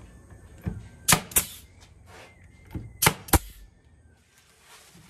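Pneumatic brad nailer driving nails into a pine frame: four sharp shots in two quick pairs about two seconds apart, each with a short hiss of exhaust air, and a softer knock just before each pair.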